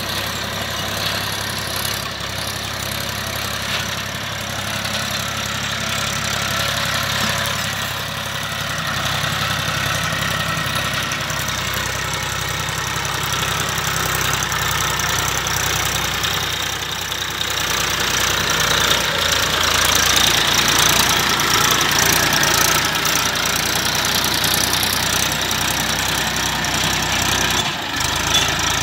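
Massey Ferguson 1035 DI tractor's three-cylinder diesel engine running steadily under load as it pulls a disc harrow through dry soil, with a broad higher-pitched noise over the engine that grows louder about two-thirds of the way through.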